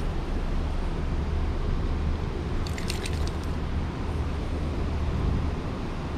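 Steady rush of river water with wind rumbling on the microphone, and a few light metallic clicks about three seconds in as fishing pliers work the hooks of a small wooden minnow lure.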